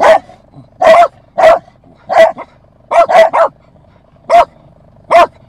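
A dog barking repeatedly: about ten sharp barks, some single and some in quick runs of two or three.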